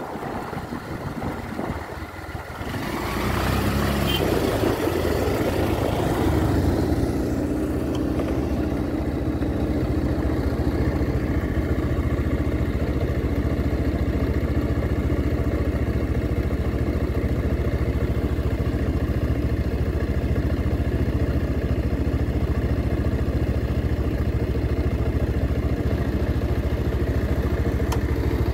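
Motorcycle engine running steadily while riding a dirt road, heard from the bike itself with road and wind rush. The engine gets louder about three seconds in and then holds an even note.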